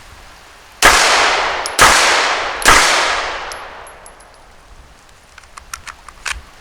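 Three 9mm pistol shots from a Glock 34 Gen 5, about a second apart, each followed by a long echo that fades away. A few faint clicks follow near the end.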